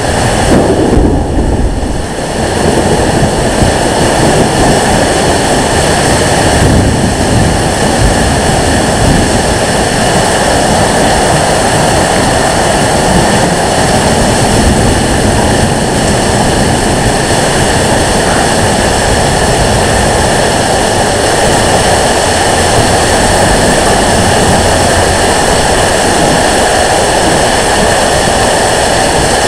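Steady, loud roar of microburst wind and heavy rain, with gusts buffeting the microphone.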